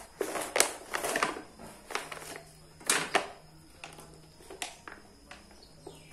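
A knife slitting open a thin plastic soda bottle: the plastic cracks and crackles in a run of sharp snaps, loudest in the first three seconds, then fainter clicks as the bottle is handled and the insects start dropping out.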